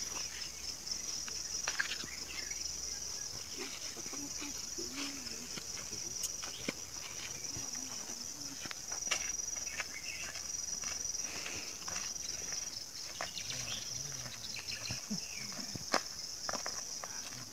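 Insects, crickets by their sound, chirring in a steady high trill, with scattered footsteps and a few faint murmured voices.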